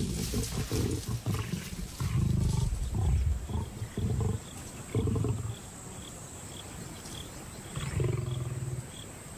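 Lions snarling and growling at close range in several short, harsh outbursts, with a quieter lull in the middle: an aggressive squabble over a kill as a young male muscles the lionesses off their carcass.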